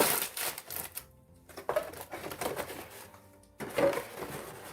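Crinkling and rustling of plastic packaging as plastic model kit parts are handled, in several crackly bursts with short pauses.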